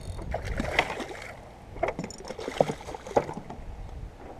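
Water splashing and slapping around a stand-up paddle board, with scattered light knocks on the board. A low wind rumble on the microphone fades after about a second and a half.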